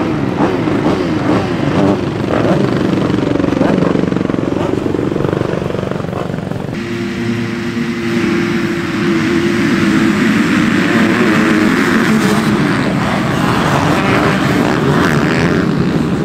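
Motocross bike engines revving hard and accelerating, their pitch rising and falling; the sound changes abruptly about seven seconds in.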